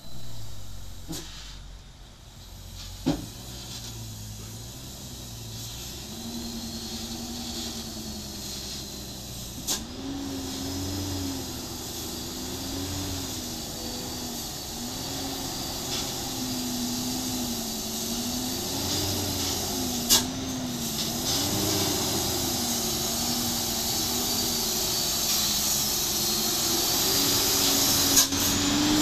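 Loaded Mitsubishi Fuso diesel truck coming down a steep, narrow cut: its engine note wavers up and down over a steady hiss, growing louder as it nears. A few sharp knocks stand out along the way.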